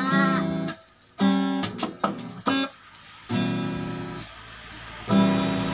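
Acoustic guitar strummed in separate chords, each left to ring, with short near-silent gaps between them and a quick cluster of strums about two seconds in.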